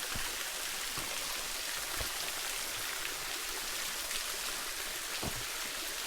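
Steady hiss of a small waterfall splashing and dripping onto rock, with a few faint soft knocks.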